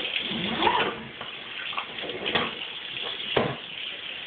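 Kitchen sink tap running water, a steady hiss, with a few knocks and bumps from handling.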